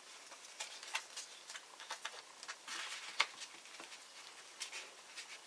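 Faint handling of paper photo prints and card stock in a ring-bound scrapbook album: soft scattered rustles and light taps as pictures are slid and tucked into a page pocket, with one sharper tick about three seconds in.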